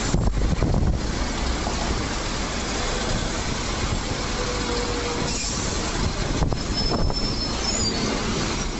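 Heavy bus and road traffic: London double-decker buses running close by, with a louder engine rumble in the first second as one passes, and short thin brake squeals later as another bus pulls in to the stop.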